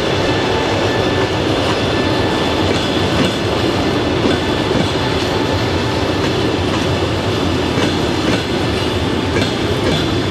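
Passenger coaches rolling over station track and switches: a steady rumble of wheels with irregular clacks at rail joints and crossings, and a faint high wheel squeal.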